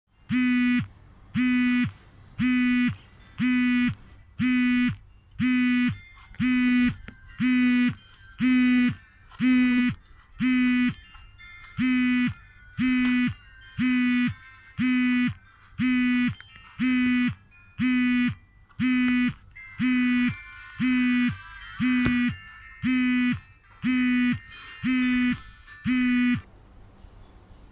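An electronic buzzer beeping about once a second, each buzz a little over half a second long and sagging in pitch as it cuts off; about two dozen beeps, stopping near the end.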